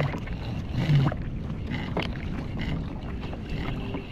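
Wind buffeting the microphone over a kayak on open water, with scattered light knocks as a crab pot line is hauled in by hand.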